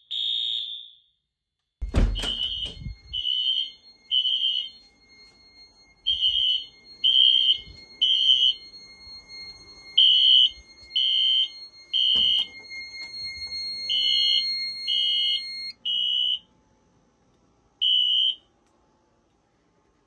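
Wheelock fire alarm horns (NS horn-strobe and AS horn, synchronized) sounding the temporal-3 evacuation pattern: groups of three high beeps about a second apart, separated by short pauses. With the panel unplugged from mains they run on DC standby power, and the tone no longer sounds wavy. A thump comes about two seconds in, and a faint steady high tone runs under the beeps until about three-quarters through.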